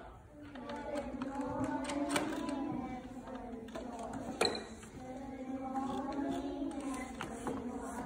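A group of primary-school children chanting a drawn-out greeting together in unison, the sing-song "Good morning" reply of a school assembly.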